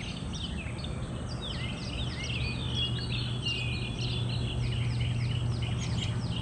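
Songbirds chirping over and over, many quick falling chirps one after another, over a low steady hum.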